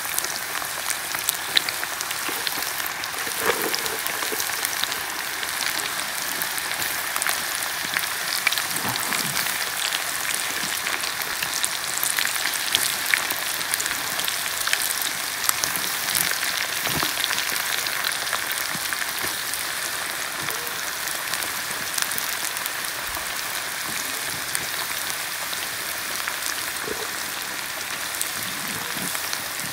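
Fish fillets deep-frying in a pot of hot oil: a steady sizzle with many scattered crackles and pops.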